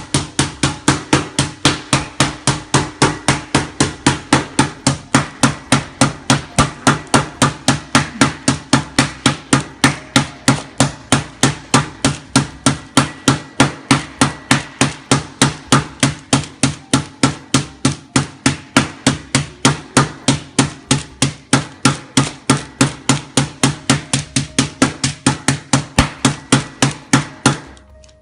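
Sliced chicken breast being pounded thin between sheets of parchment paper: a steady run of sharp blows, about three to four a second, that stops near the end.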